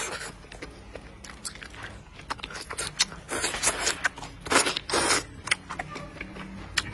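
Close-miked eating: a person chewing and biting chicken, with many short wet clicks and smacks, and a few longer, louder noisy sounds in the middle.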